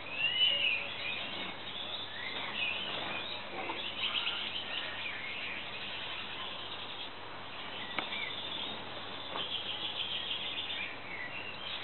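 Gouldian finches chirping and calling: scattered short, high chirps throughout, the loudest about half a second in, with a denser rapid rattling stretch around ten seconds in.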